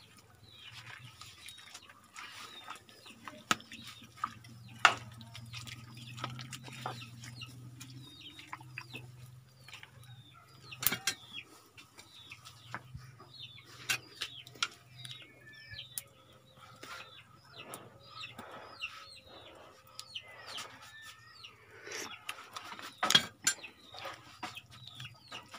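Chickens clucking on and off, with a few sharp clicks and knocks in between.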